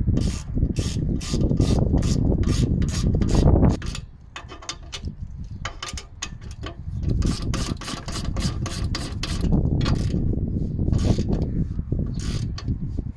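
Hand socket ratchet clicking in quick, even strokes, about three clicks a second, as the bolts on a newly fitted exhaust flex pipe are tightened. The ratcheting comes in spells, with a quieter gap a few seconds in.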